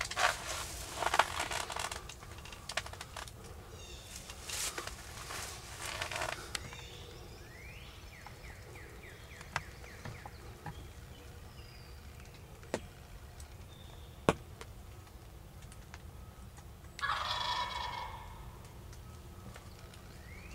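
Wild turkey jake gobbling, a rapid rattling call heard in bursts, loudest near the start and again a few seconds later, with another burst near the end. A few sharp clicks and faint high rising peeps sit in the background.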